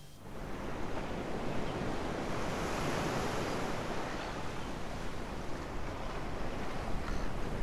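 Ocean surf: waves breaking and washing in as a steady rushing noise that swells slightly about three seconds in.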